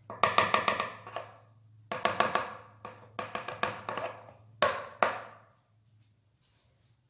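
Metal ladle clinking and tapping against a ceramic mixing bowl while scooping chocolate cake batter. The taps come in quick runs of ringing clinks, several times, with two last single clinks about five seconds in.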